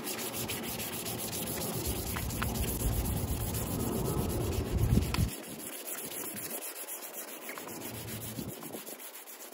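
Wet sanding by hand: 2500-grit sandpaper wrapped around a sponge, rubbed over a water-wetted painted trim panel with a steady scratchy hiss.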